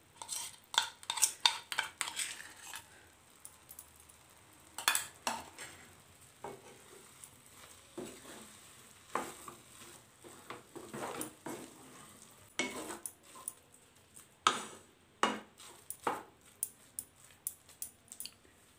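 Metal spatula scraping and knocking against a metal kadai while stirring a thick, sticky mix of fried bread and jaggery, in irregular clusters of strokes with short pauses between.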